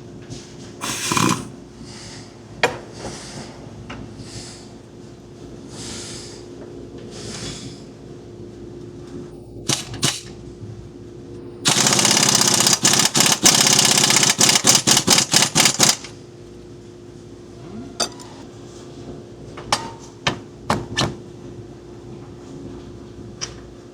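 Air impact wrench hammering for about four seconds, ending in several short bursts. A run of short hisses comes earlier, and scattered clicks of tools come later.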